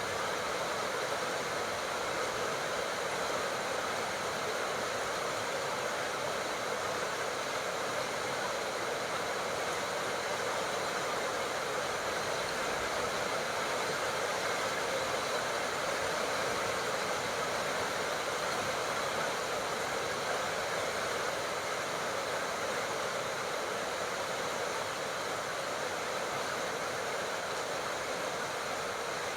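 Steady heavy tropical rain, a dense even hiss of falling drops with no breaks.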